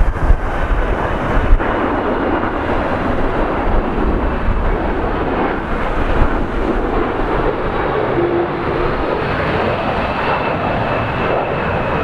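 Jet noise of a Boeing KC-46 Pegasus tanker's twin Pratt & Whitney PW4062 turbofans as it flies over low on approach: a steady rush with a faint whine that slowly drops in pitch near the end. Wind buffets the microphone at the start.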